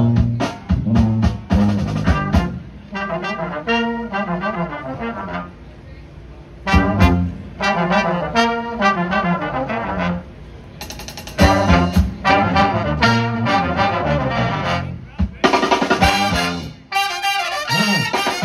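Live brass band of trumpets, trombones, saxophones and sousaphone playing a tune together, in phrases that often slide down in pitch with short quieter breaks between them, over drum hits.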